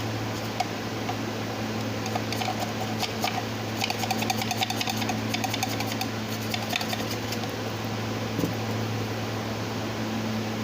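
A steady low mechanical hum, with spells of quick, light clicking and rattling in the middle from hand tools working on the engine.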